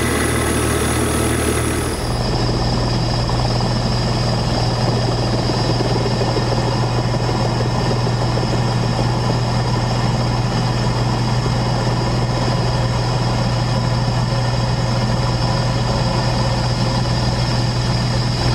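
Steady motor and rotor noise of an aircraft heard from on board: a constant low hum with a thin high whine, its character changing slightly about two seconds in.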